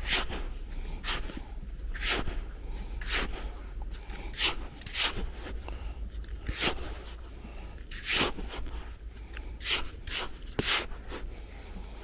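Digging into dry beach sand with a hand-held digging tool: a short scrape or swish of sand roughly every second, about a dozen strokes in all.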